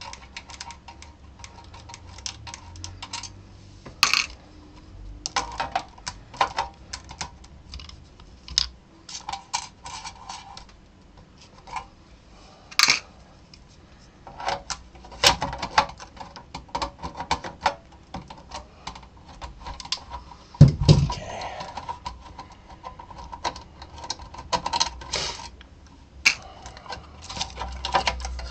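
Irregular metallic clicks and clinks of large pliers on small nuts and the sheet-metal bracket of an LCD monitor's video driver board, as the nuts are worked loose and the board is handled. One heavier thud comes about two-thirds of the way through.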